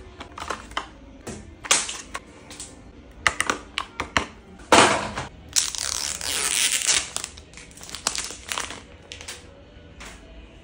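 Plastic packaging handled: a series of crinkles, clicks and taps from the plastic tray, inserts and box, with a louder knock about halfway through. Just after it comes a long crackling rip as the protective plastic film is peeled off a new smartphone's screen.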